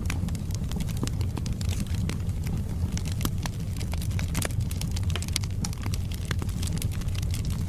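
Wood logs burning in a fireplace: a steady low rumble of the flames with frequent sharp crackles and pops of the burning wood.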